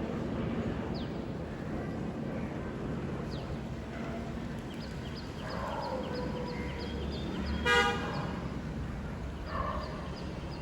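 A single short vehicle horn toot about three-quarters of the way through, over a steady rumble of outdoor background noise. Faint rapid high ticking runs through the second half.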